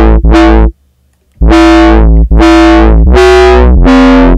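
Foghorn bass patch from the Vital software synth, its second oscillator tuned 31 semitones up: a string of loud, buzzy bass notes over a deep sub, each note bright at its start and darkening as its envelope shape fades the upper oscillator out. About five notes, with a short break about a second in, and the pitch stepping up and then down near the end.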